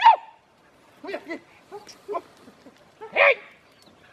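Hunting dogs yelping and barking in the brush. The first call is a sharp yelp that drops in pitch, followed by a few short, fainter barks, and a louder bark a little after three seconds in.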